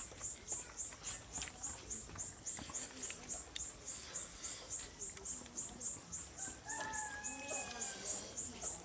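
An insect chirping on and on in a high-pitched pulse, about four pulses a second. About six and a half seconds in, a drawn-out animal call rises over it for about a second and a half.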